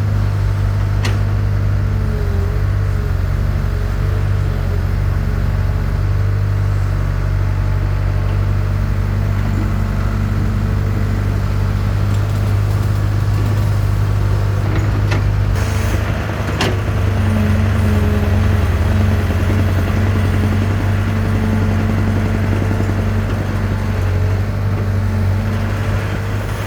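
Excavator's diesel engine running steadily at a construction site, with a few sharp metallic clanks about a second in and again about two-thirds of the way through.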